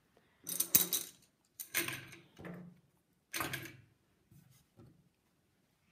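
Hands handling knitting tools on a wooden tabletop and in a basket of knitting needles: three short bursts of clattering and rustling, followed by a couple of faint knocks.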